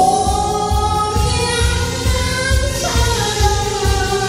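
A woman singing a Korean trot song over electronic keyboard accompaniment with a steady bass beat; she holds long notes, sliding up into one at the start and gliding down to a lower one about three seconds in.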